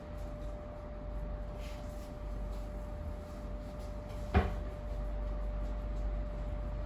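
A single sharp crack about four seconds in, over a steady hum.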